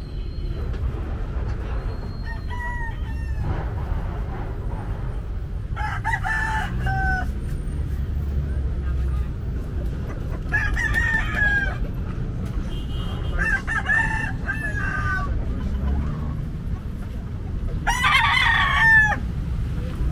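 Rooster crowing, five crows a few seconds apart, each about a second long, over a steady low rumble.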